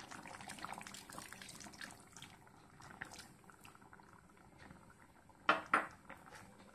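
Thick first-press coconut milk poured into a simmering fish curry in a pan, then faint bubbling of the simmer. Two short knocks about five and a half seconds in.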